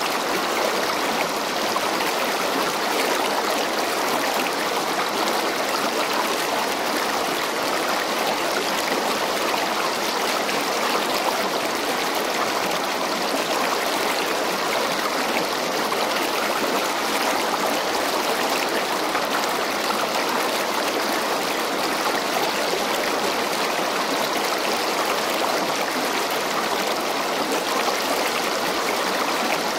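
Mara River water rushing steadily past the rocks of its bank, an unbroken, even hiss.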